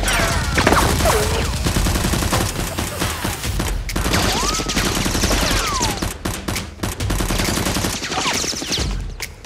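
Dense, rapid gunfire, machine-gun style, running almost without a break, with a few falling whistling whines among the shots.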